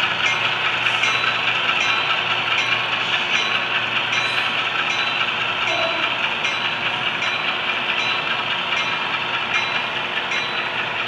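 HO scale model train rolling past: a steady whirr of the locomotive motors and wheels on the track, with a light, regular clicking from the wheels.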